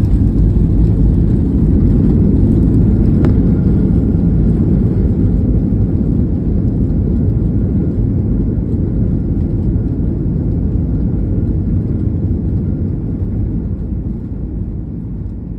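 Airliner cabin noise during landing: a loud, steady low rumble that gradually eases off.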